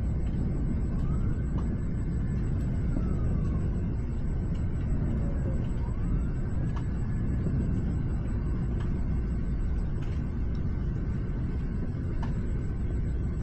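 Steady low rumbling noise of a thunderstorm at night. Faint whistles rise and fall twice over it, with a few light clicks.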